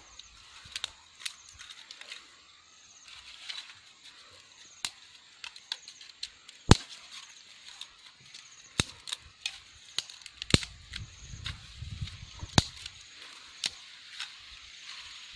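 Thin dry twigs snapped by hand one after another: a dozen or more sharp, irregular cracks, the loudest about seven seconds in.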